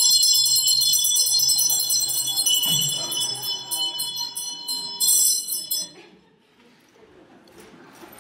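Bells jingling in a bright, shimmering ring over a faint low hum, fading out about six seconds in.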